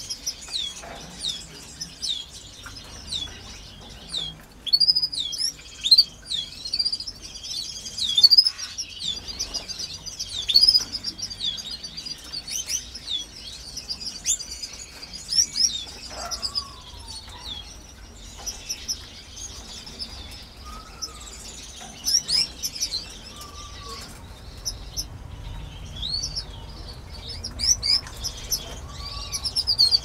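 Canaries chirping: a steady stream of short, high chirps, with now and then a lower sliding whistle.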